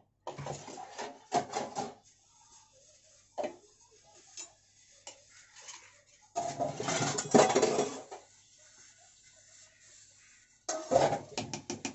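Metal ladle knocking and scraping against an aluminium cooking pot while stirring a liquid rice-and-egg masala: clusters of clinks at the start and near the end, with a longer, louder stretch of scraping around the middle.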